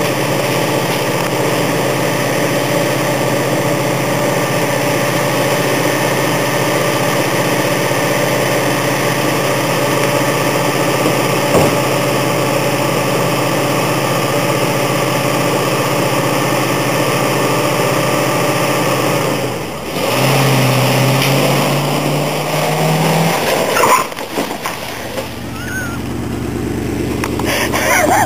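Truck engine running steadily, then revving up about two-thirds of the way through, with the sound changing abruptly a few seconds later.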